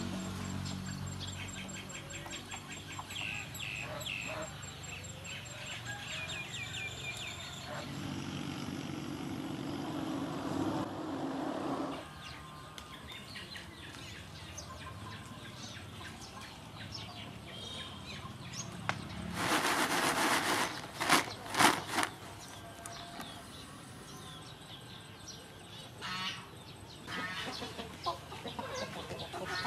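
Outdoor yard ambience: chickens clucking and small birds chirping in quick short calls, busiest in the first several seconds. About two-thirds of the way through comes a loud rustling burst with a few sharp flaps.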